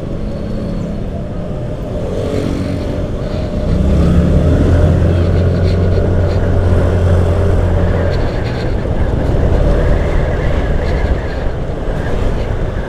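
Motorcycle engine running while riding, over road and wind noise; the engine drone gets louder about four seconds in as the bike speeds up, then eases a little after about eight seconds.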